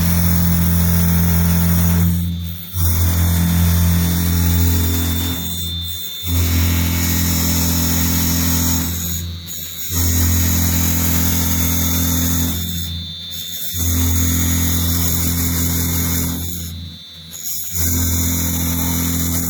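CNC drilling machine boring holes in a wooden column: a steady motor hum with a high whine, which drops away briefly about every three and a half seconds as each hole is finished and the next begins, five times.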